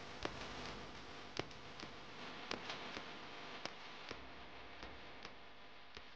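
Faint hiss with scattered irregular clicks and crackles, about two a second, like surface noise on a record. It cuts off suddenly near the end.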